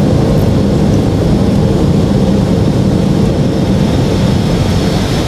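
Airbus A320 in flight on approach with flaps extended: a loud, steady rumble of airflow and engine noise, with a faint steady hum underneath.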